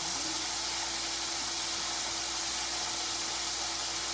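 Steady hiss with a faint, even hum underneath, unchanging throughout: kitchen background noise.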